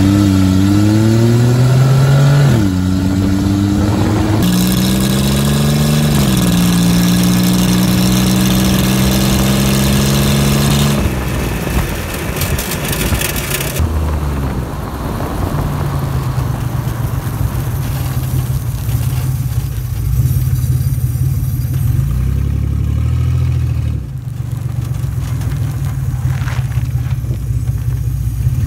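A 2003 Pontiac Grand Am's engine accelerating hard, its pitch rising and dropping back as it shifts up twice, then holding steady. About eleven seconds in the sound changes to a steady engine drone under wind and road noise as the car runs at speed.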